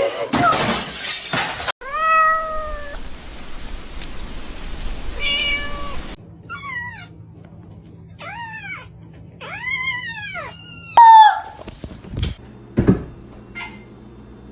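A domestic cat meowing several times. Most of the meows rise and then fall in pitch, and one long call holds a steady pitch. A loud sudden sound with a falling cry comes about eleven seconds in.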